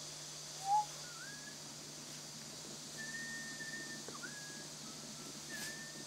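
A series of thin whistled notes. A short rising note about a second in is the loudest, followed by a rising note and then several longer, mostly level whistles.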